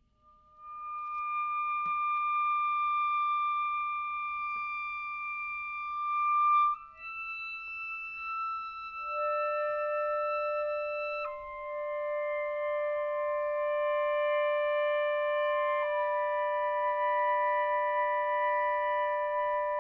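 Saxophone quartet playing a slow classical piece in long, held notes. A single high note swells in and steps up about seven seconds in. A lower voice then joins, and the sustained chords shift twice.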